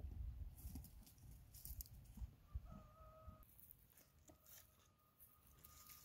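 Faint, intermittent crinkling of aluminium foil and tearing of meat as a foil-baked whole chicken is pulled apart by hand.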